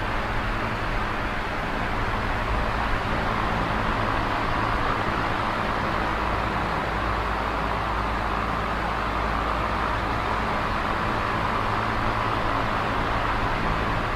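Small oscillating electric fan running steadily: an even whir of air from the blades over a low, constant motor hum.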